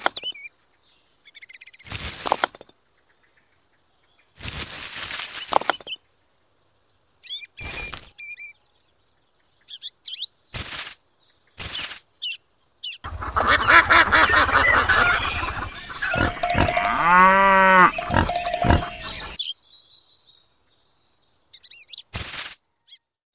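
Several short scraping and clattering bursts as miniature clay bricks and pots are handled, with faint chirps between them. In the second half comes a longer, louder stretch of layered farm-animal and bird calls.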